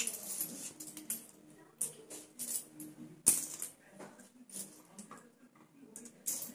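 Metal coins clinking and scraping on a concrete floor as they are picked up and sorted into piles by hand: a run of small irregular clinks, with a sharper one about halfway through.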